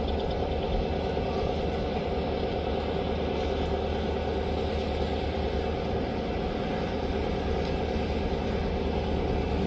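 Diesel freight locomotive engines running steadily at the head of a heavy train loaded with scrap iron: a continuous low rumble with a steady engine hum.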